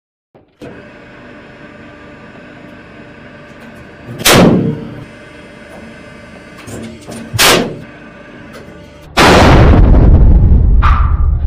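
Hydraulic press humming steadily as its ram crushes brass rifle cartridges, which go off with loud bangs. There is a sharp bang about four seconds in and another about three seconds later. Near the end comes a much longer stretch of loud blast noise.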